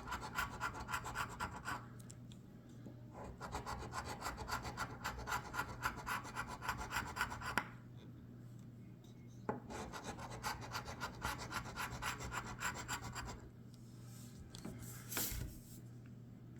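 Scratch-off lottery ticket being scratched, rapid back-and-forth scraping strokes across the card's coating in three long runs with short pauses between them. Near the end there is a single soft knock.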